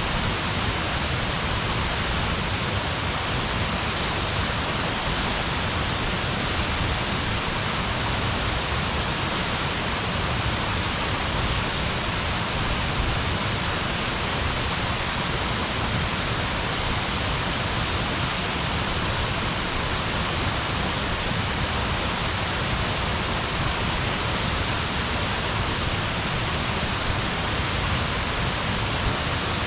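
Steady, even rushing noise with no crackles, pops or voices in it.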